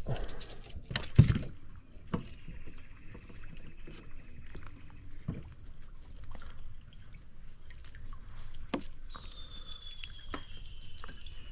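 Knocks and clicks on a plastic kayak hull as a small fish is swung aboard and unhooked by hand, with one sharp knock about a second in. A faint, steady, high thin tone sounds in the background.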